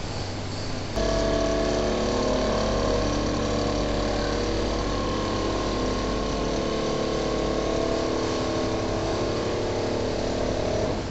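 Richpeace single-needle automatic quilting machine running in production, a steady mechanical hum of its sewing head and drives. A steady whine sets in suddenly about a second in and stops near the end.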